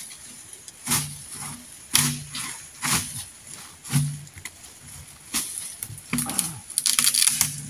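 A man grunting with effort about once a second while heaving a heavy timber log, each grunt with a knock of wood, and a quick run of knocks near the end.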